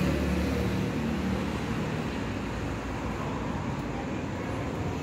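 Steady low rumble of distant road traffic, a little louder for the first couple of seconds, then settling.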